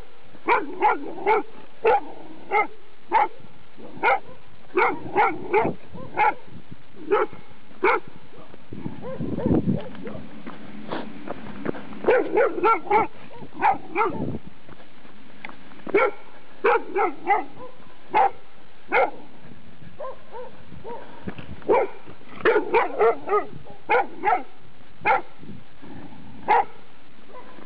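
A large tan dog barking repeatedly at a passing runner, in quick runs of two to five short, sharp barks broken by brief pauses.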